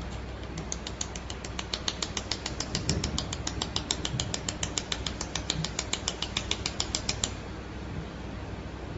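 Pulsed laser welding machine firing a steady train of sharp clicks, about seven a second, that starts about half a second in and stops about two seconds before the end, over a low steady hum.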